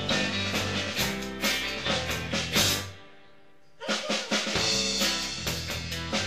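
Rock music with a steady drum-kit beat, bass and guitar, breaking off for about a second near the middle before coming back in.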